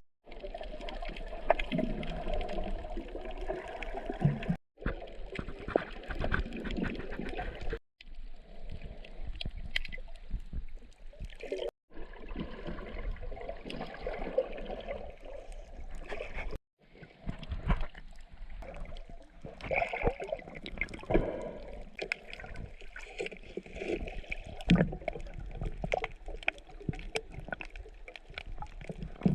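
Water sloshing and gurgling around a snorkeller, full of small bubbly clicks, broken by several brief dead-silent cuts.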